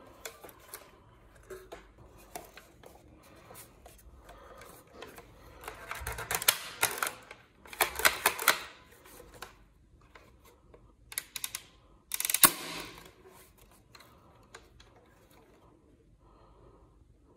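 Plastic toy sniper rifle being handled: scattered clicks and light rattles of its plastic body and parts. There are louder bursts of clattering and scraping about six to nine seconds in, and the sharpest one at about twelve seconds.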